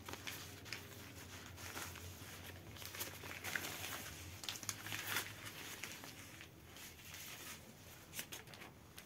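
Thin black plastic bag rustling and crinkling as it is untied and slid off a telescopic fishing rod, with irregular small clicks of handling.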